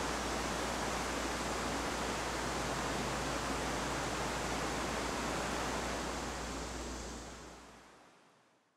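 Steady rushing noise of wind and choppy open water, with a deep rumble underneath, fading out over the last two seconds.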